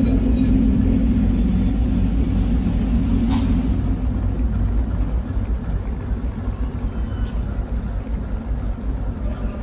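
ChME3 diesel shunting locomotive idling: a steady low rumble, strongest in the first two seconds or so and weakening after.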